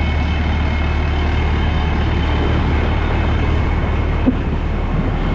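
Fire truck engine running steadily with a low, even hum, and one brief sharp sound a little after four seconds in.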